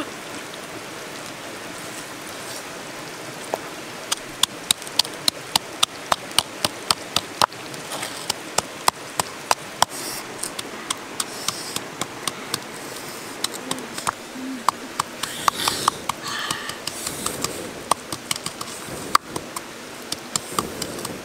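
Steady rushing of a river under a run of sharp clicks and taps. The clicks come quickly and evenly, about three a second, from about four seconds in, then grow scattered.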